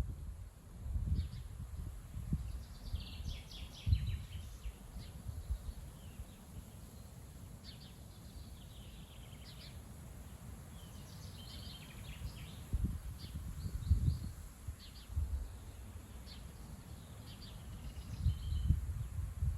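Strong gusty wind buffeting the microphone in low rumbles that swell and fade every few seconds, with birds chirping in short clusters through it.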